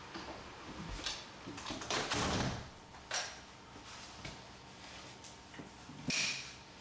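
Interior door being shut on an exercise rope's door anchor, with a few knocks and a longer scrape about two seconds in as the anchor and handles are handled.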